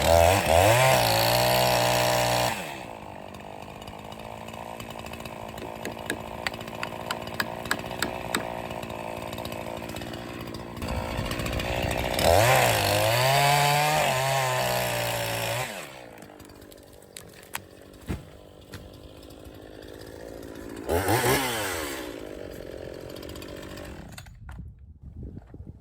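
Echo CS-501P two-stroke chainsaw revved up hard three times in short bursts, idling between them, with a run of sharp knocks while it idles. The engine falls quiet near the end.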